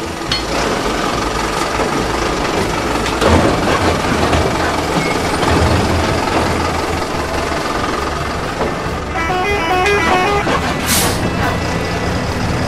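Dubbed truck sound effects: a truck engine running with a steady rumble, a horn sounding a short run of stepped notes about nine seconds in, then a brief air-brake hiss.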